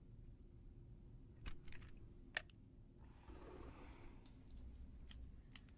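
Near silence with a few faint, sharp clicks, some close together, and a soft breathy rustle in the middle.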